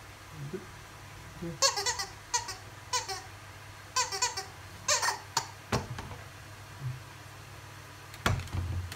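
Rubber squeaky dog toy squeezed by hand, giving a quick run of short, high squeaks. A thump follows near the end.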